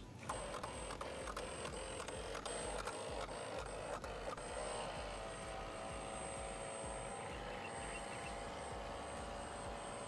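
Small electric motor of a homemade remote-control bait boat running steadily as it drives the propeller through the water, a steady whine with a clearer pitched tone settling in from about halfway.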